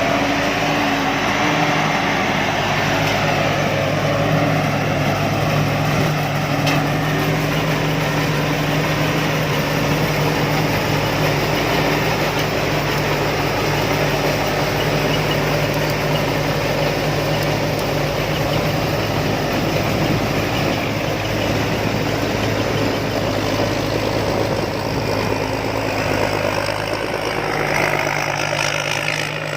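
Combine harvester's engine running steadily at a constant speed.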